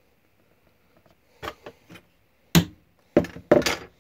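Knocks from punching holes in gasket paper with a hollow punch over a wooden block: three light taps, then three loud, sharp strikes near the end.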